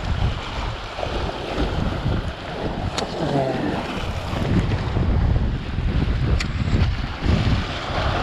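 Sea waves breaking and washing over shoreline rocks, with wind buffeting the microphone. Two short clicks, about three and six and a half seconds in.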